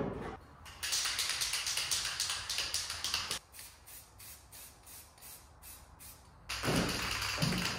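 Aerosol spray can being shaken, its mixing ball rattling in quick even strokes about three a second, fainter for a few seconds in the middle and picking up again near the end.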